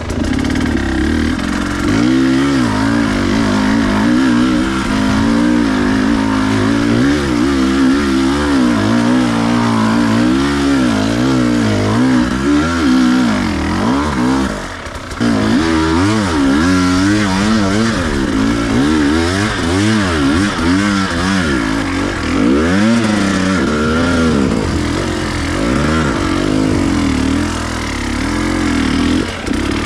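Enduro dirt bike engine revving up and down constantly under quick throttle changes while riding over slippery trail ground, with a short drop in revs about halfway through.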